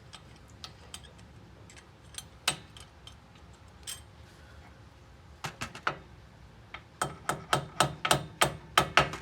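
Hammer tapping a brake pad retaining pin into a Brembo brake caliper, metal on metal. There are a few scattered taps, then a quick run of about ten louder strikes, roughly four a second, near the end.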